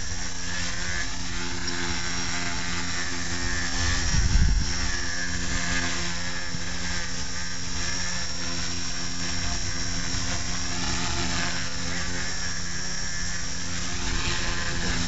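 Blade mCP X micro RC helicopter hovering, its motor and rotors giving a steady high whine that wavers up and down in pitch as it is manoeuvred for a landing. A brief low rumble about four seconds in is the loudest moment.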